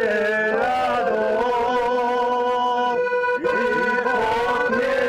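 Slow traditional music of long held, slightly wavering notes, several voices or parts sounding together, with a short break about three seconds in.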